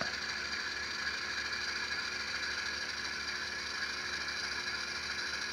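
LokSound Select Micro sound decoder in an N-scale EMD E8B model playing a steady diesel engine sound through the model's small speaker, mixed with the whir of the locomotive's motor and gears as it creeps along at a low speed step.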